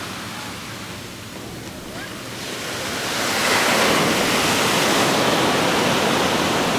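Ocean surf: a wave builds and breaks about three seconds in, and the loud wash of surf carries on after it.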